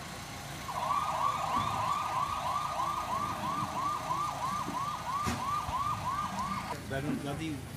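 A vehicle siren sounding in a fast yelp, about three quick up-and-down sweeps a second. It starts about a second in and stops shortly before the end.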